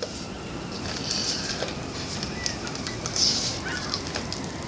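Two short hisses of air escaping from the stretched neck of an inflated balloon without squealing, with faint rubber handling clicks: the squeal trick failing to catch.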